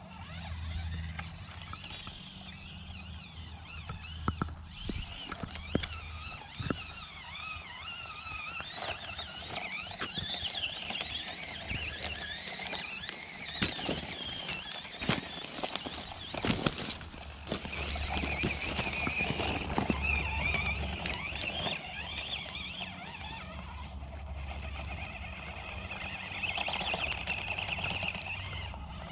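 Axial SCX24 Bronco micro crawler's small brushed motor and gears whining, the pitch rising and falling with the throttle as it crawls. Sharp clicks and knocks of the tyres on rocks and pebbles come in a cluster around the middle.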